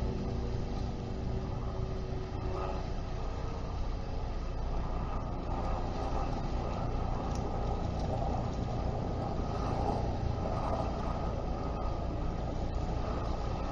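Steady low rumble of distant engines, with a pitched engine hum that fades out about two and a half seconds in.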